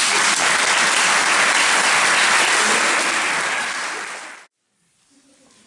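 Audience applauding, loud and even, cut off suddenly about four and a half seconds in.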